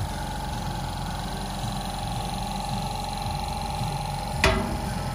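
Machinery running steadily: a constant hum with a steady whine over a low rumble. One sharp click about four and a half seconds in.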